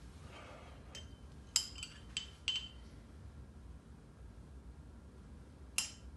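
A metal spoon clinking against small metal bowls and serving dishes: a quick run of clinks with short ringing between about one and three seconds in, then a single clink near the end.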